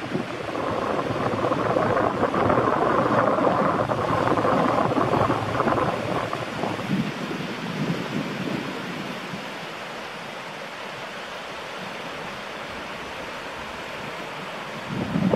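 Small waves breaking and washing onto a flat sandy beach, a steady hiss of surf. It is louder for the first several seconds, then settles to a softer, even wash about seven seconds in.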